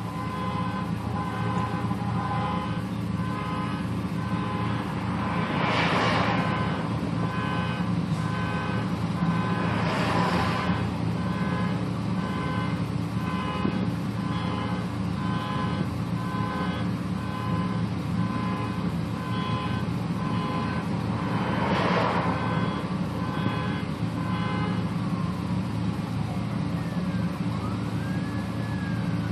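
Street traffic sounds over a steady engine hum: a regular series of electronic beeps that stops a few seconds before the end, and three vehicles passing with a rising and fading whoosh. Near the end a siren starts to wail, rising and then falling in pitch.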